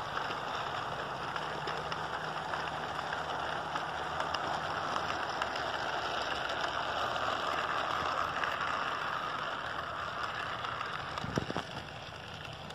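HO-scale model freight train rolling past on the track: a steady rattle of wheels over the rails with fine clicks, swelling in the middle and easing off near the end. A single knock comes about eleven seconds in.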